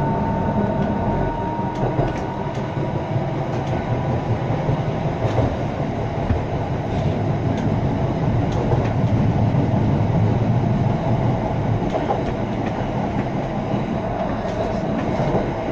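Tram 642 running along its track, heard from inside the car: a steady rumble of wheels and running gear with occasional light clicks from the track. A faint whine near the start fades away.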